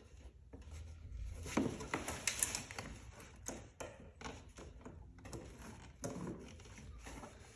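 Scattered clicks and knocks of a hand wrench against metal while working at a stubborn 8 mm hose clamp on a car's intake, with a louder cluster about two seconds in.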